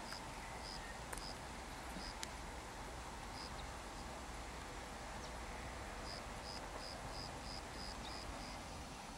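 Faint outdoor ambience: a steady hiss with a short, high chirp repeated in runs, about four a second for a couple of seconds near the end. Two faint clicks come about a second and two seconds in.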